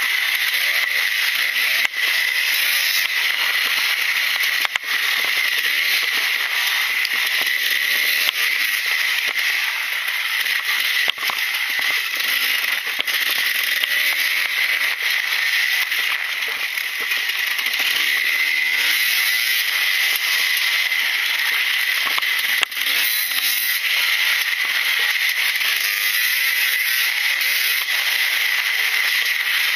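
Husqvarna WR300 two-stroke single-cylinder dirt bike engine revving up and down while riding a dirt track, buried under heavy wind noise on the rider-mounted camera's microphone, with a few sharp knocks as the bike hits bumps.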